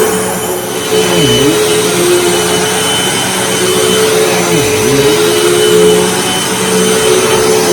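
Hoover WindTunnel T Series bagged upright vacuum cleaner running with a steady motor whine over a rush of air. Its motor pitch dips briefly and recovers twice, about a second in and again near five seconds.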